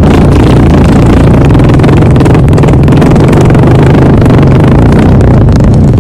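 One long, loud fart, a rough low-pitched buzz held steady without a break.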